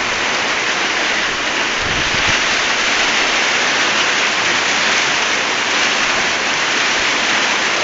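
A hailstorm: hail and rain pelting down in a dense, steady clatter.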